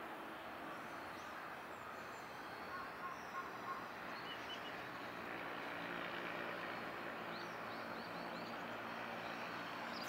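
Steady outdoor background noise with a low hum, and faint high bird chirps, a quick run of them about three-quarters of the way in.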